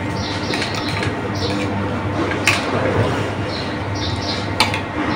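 Spoon or fork clicking against a plate twice during a meal, over a steady low hum, with a few short high chirps.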